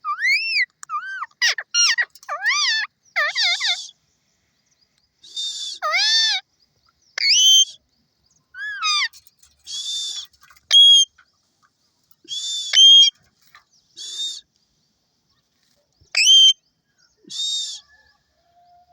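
A parrot calling in a string of short bursts: arching, gliding whistles in the first few seconds, then harsh screeches mixed with sharp whistles, each about half a second to a second long, with silent gaps between.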